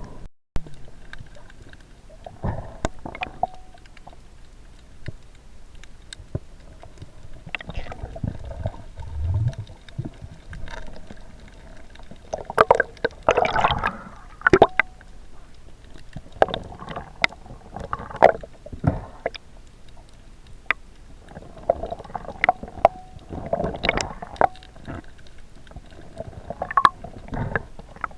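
Underwater sound as picked up by a camera in a waterproof housing: water sloshing and gurgling with many irregular sharp clicks and knocks, louder gurgling bursts a third of the way in and again later.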